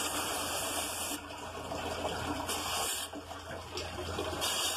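Water from a hose nozzle spraying against the fins of a walk-in cooler's evaporator coil, rinsing the packed dirt from the coil down into its drain pan. The spray's hiss swells and eases in spells as the stream sweeps across the coil.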